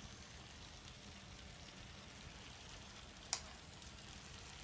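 N scale model passenger train rolling along its track, a faint steady crackling hiss of small wheels on rails, with one sharp click a little over three seconds in.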